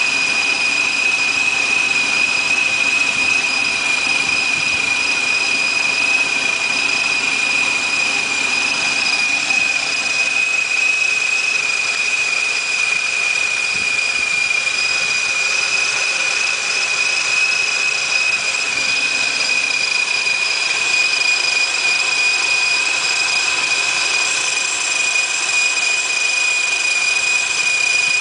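2001 Roush Mustang GT's V8 idling with a Paxton Novi 1000 centrifugal supercharger, whose steady high-pitched whine sits over the engine's low running.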